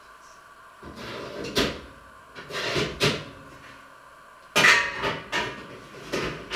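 Clatter and knocks of a low kitchen cupboard being rummaged, its door and the kitchenware inside banging about. It starts about a second in, with a few knocks, then a quicker, louder run of knocks from about halfway.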